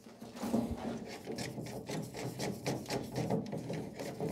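A plastic nut being unscrewed, its threads rubbing and clicking in quick, irregular scrapes.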